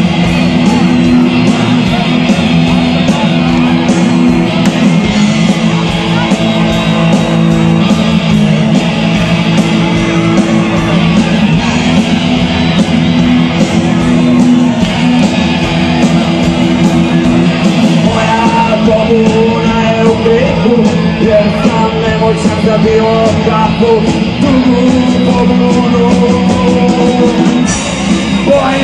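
Rock band playing live: guitars and drums, with a voice singing over them from about two-thirds of the way through.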